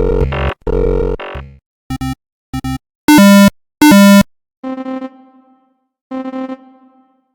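Synthesized computer error tones. A buzzy electronic tone cuts off about a second and a half in. Then come two pairs of short blips, two long, very loud buzzy tones, and two softer tones that fade away.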